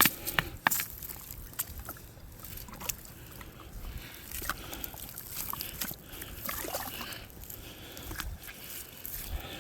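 Water trickling weakly from a water heater's drain hose during a flush, a poor flow. Scattered light clicks and knocks run through it.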